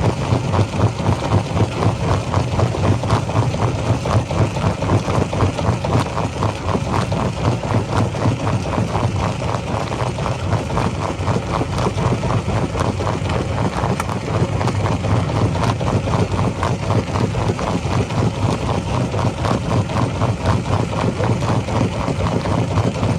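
Rock-crushing machinery running: a heavy engine's steady drone with a fast, even pulsing.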